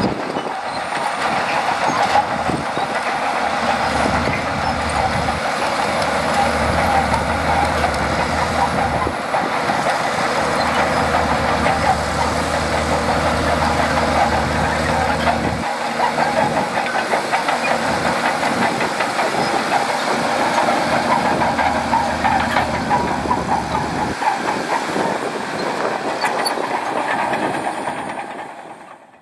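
Shantui DH17C2 crawler bulldozer at work: its diesel engine runs under load while the steel tracks clatter steadily. The sound fades out near the end.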